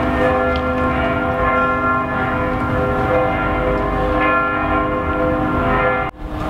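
Church bells ringing, several bells struck in turn with their tones hanging on and overlapping. The ringing breaks off suddenly near the end.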